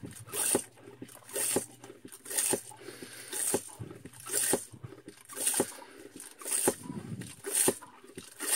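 Survivor Filter Pro hand-pump water filter being pumped steadily, about one stroke a second, pushing filtered muddy water out through its hose into a glass. It is still pumping nice and easy, not clogged by the mud.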